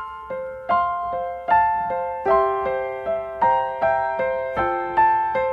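Intro music: a gentle piano or electric-piano melody of single notes picked out about two a second, each ringing and fading.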